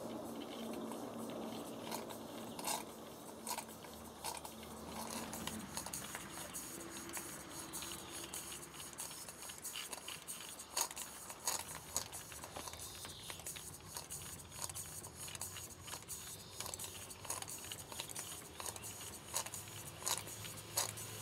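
Model steam beam engine running under steam: quick, irregular clicking and ticking from its moving parts and exhaust, over a low hum that drops away about five seconds in.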